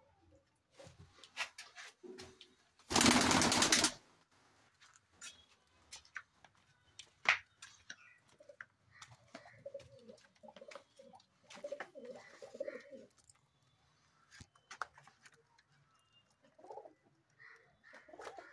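Saharanpuri pigeons cooing, with a run of low repeated coos in the middle and a few more near the end, among scattered light clicks. A loud noise burst lasting about a second comes about three seconds in.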